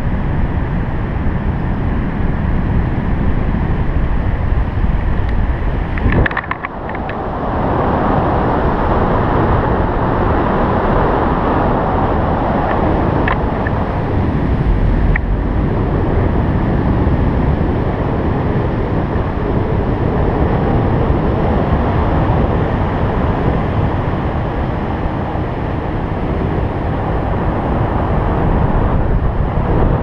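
Air rushing over a GoPro's microphone during a tandem paraglider flight: steady, loud wind noise, dipping briefly about six seconds in.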